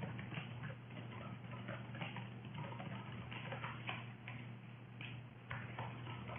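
Typing on a computer keyboard: faint, irregular key clicks over a low steady hum.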